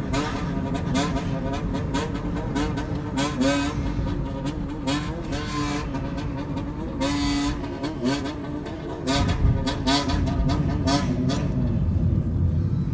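Honda CBX400F's inline-four engine being revved in a rhythmic throttle 'call': a string of quick blips, each rising and falling in pitch, in a patterned sequence with a few longer held revs.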